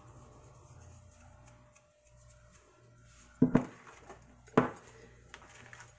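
A slotted cooking spoon stirring rice in tomato broth in a pan, knocking sharply against the pan twice about a second apart, midway through.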